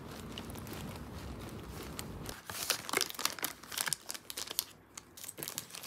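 Low, steady street rumble for about two seconds, then a sudden change to irregular crinkling and rustling as a cardboard snack box and its plastic-wrapped cookies are handled and opened.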